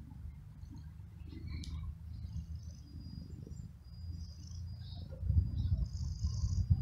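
Small birds chirping faintly over a low steady rumble, which grows louder about five seconds in.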